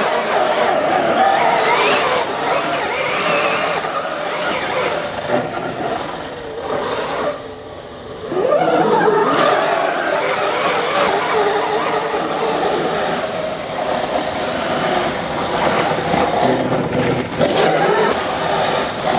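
Electric 1:5 scale RC rally car with a brushless motor and all-steel gears, whining as it accelerates and slides on hard dry dirt, its pitch rising and falling with the throttle. It eases off briefly about eight seconds in, then whines up again as it speeds away.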